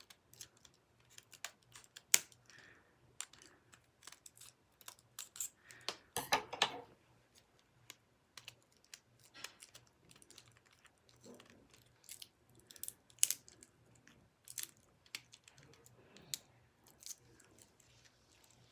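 Irregular sharp clicks and crackles of plastic packaging being handled and worked open by hand, scattered ticks with short pauses between them.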